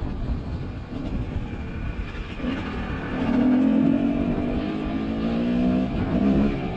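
GasGas two-stroke dirt bike engine running under throttle on a trail. It is a rough low rumble at first, then about two and a half seconds in the engine note comes up strong and steady and holds for a few seconds before dipping briefly near the end.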